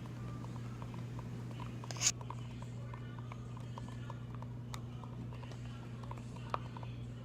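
A utensil stirring clear glue mixed with baking-soda water in a container, making light, rapid clicks of about three a second, with one louder sharp knock about two seconds in. A steady low hum runs underneath.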